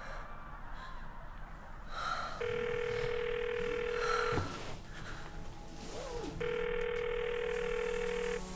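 A phone ringing: two rings, each about two seconds long, two seconds apart.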